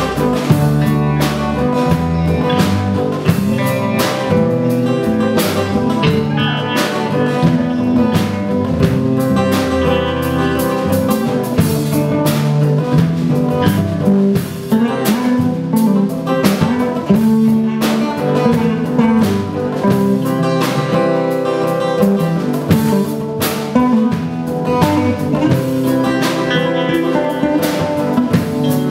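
Live band playing an instrumental passage without vocals: strummed acoustic guitar with electric guitar, bass guitar and drum kit.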